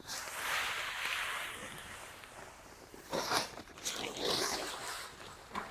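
Calcined clay granules poured from a bag into a bin: a grainy hissing rattle for about two seconds that tails off, then a few shorter rustling pours near the end.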